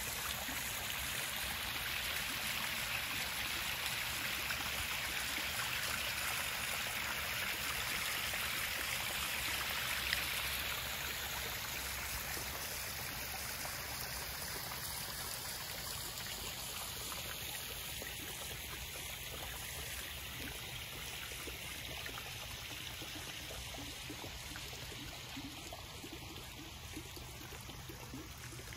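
A small garden-pond waterfall spilling over rocks into a koi pond, a steady splash and trickle of falling water that grows fainter over the second half.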